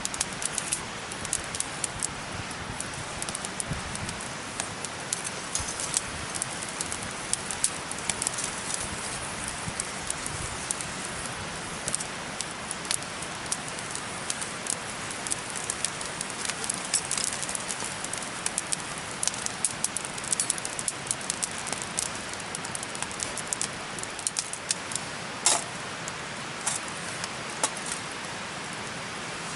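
Wood fire crackling in a fire pit: a steady hiss with frequent, irregular sharp pops, one louder pop about 25 seconds in.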